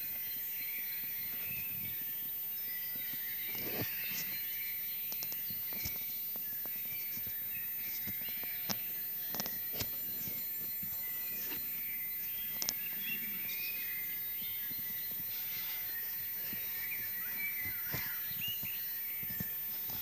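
Dawn chorus of many songbirds singing at once, overlapping high chirps, whistles and trills over a steady hiss.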